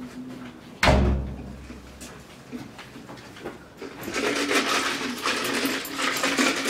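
A single thump about a second in, then from about four seconds in ice cubes clattering in a plastic iced-coffee cup as it is shaken about overhead.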